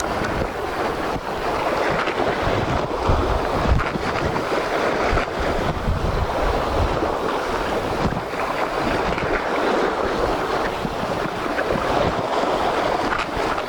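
Surf washing against the shore, with wind buffeting the microphone in irregular low gusts.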